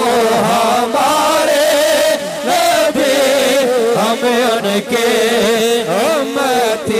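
Devotional chanting: voices sing a naat-style refrain to an ornamented, wavering melody, held on without a break.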